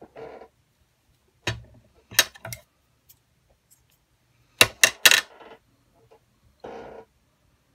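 Sharp clicks and taps from a pair of craft scissors being handled and snipping baker's twine, loudest in a quick run of three about halfway through. Brief soft rustles at the start and near the end.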